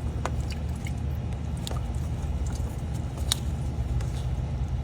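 A steady low engine-like rumble, with a few light sharp clicks over it.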